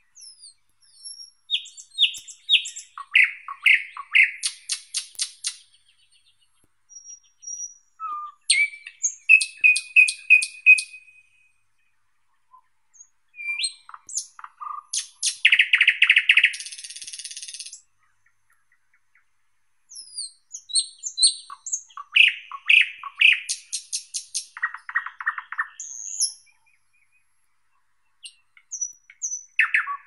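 Thrush nightingale singing: four phrases of several seconds each, separated by short pauses, with another phrase beginning near the end. Each phrase is built from fast runs of the same note repeated: dry clicks, rattling trills and short whistles.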